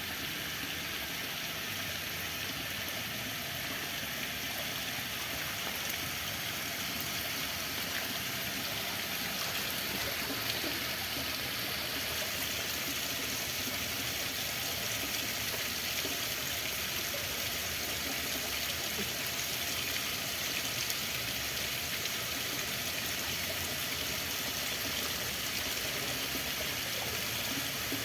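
Running water flowing steadily, an even rushing sound like a stream.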